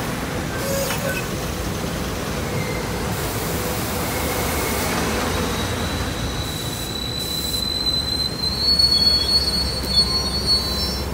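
SEPTA Silverliner IV electric commuter train running past at close range, with steady rolling rumble. About halfway through, a thin high squeal starts and slowly rises in pitch, and a few knocks come near the end.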